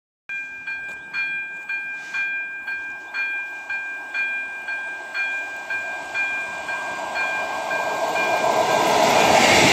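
Level-crossing warning bell ringing steadily, a two-tone electronic ding about twice a second. Under it a diesel railcar approaches along the track, its running noise growing louder toward the end.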